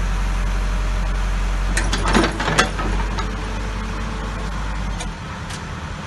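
Caterpillar 416E backhoe loader's diesel engine running steadily at idle, with a few sharp metallic knocks about two seconds in. Near five seconds the deep engine rumble drops away.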